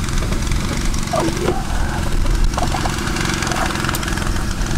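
A small engine running steadily at constant speed, a continuous low drone.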